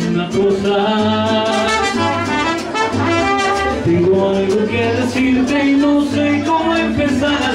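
Upbeat Latin dance music with a brass section and a steady beat.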